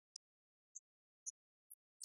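Near silence, broken by four faint, very short high-pitched chirps spread across the two seconds.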